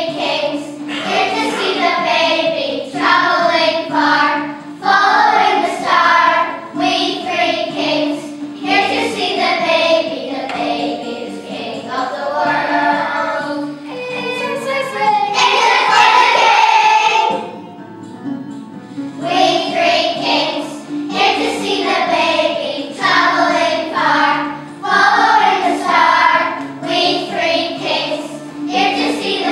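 A class of young children singing a song together in chorus.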